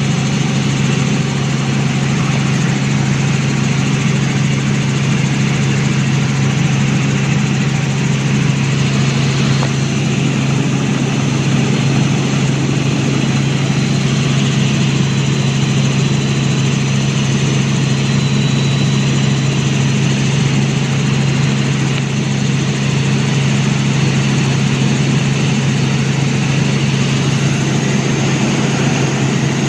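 Helicopter running: a loud, steady drone with a strong low hum that does not change.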